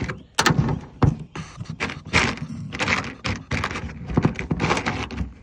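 Hands rummaging through a box of tools and small electrical parts in search of something, making a fast, irregular run of knocks and clatters.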